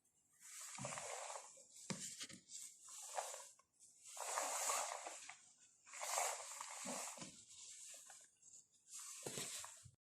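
Faint hissing in about six separate bursts, each up to a second and a half long, with short gaps between them.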